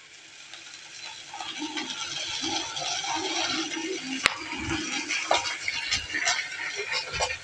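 Sauce sizzling in oil in a frying pan while it is stirred, soy sauce and ketchup just added. The sound grows louder over the first two seconds, with a sharp tap a little after four seconds.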